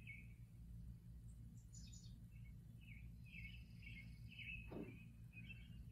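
Faint bird chirps and calls played back from a YouTube bird video: a run of short falling chirps, with one longer downward-sliding note about three-quarters of the way through, over a steady low hum.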